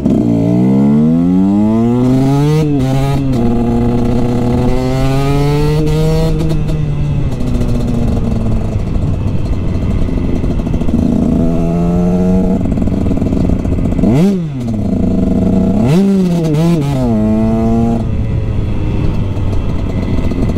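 Husqvarna TX 125 two-stroke engine through an FMF expansion chamber and Akrapovič silencer, ridden through the gears. The pitch climbs under acceleration and drops back at each change, holds fairly steady while cruising mid-way, then dips and climbs sharply again about two-thirds through.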